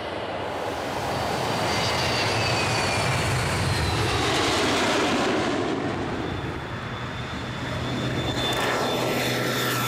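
Jet airliner engines passing close, a whine falling in pitch over a steady engine noise. From about seven seconds in, a steadier drone with a low hum from a twin-engine propeller plane.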